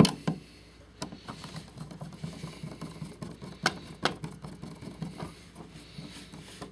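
Screwdriver driving the center screw of an outlet cover plate: scattered small clicks and scrapes of the tool and plate, with a sharp click at the start and two more around four seconds in.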